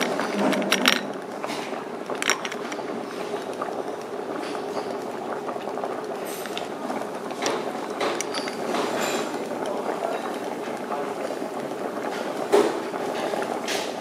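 Steady background din of a restaurant, with a few sharp clinks of tableware over it, the loudest near the end.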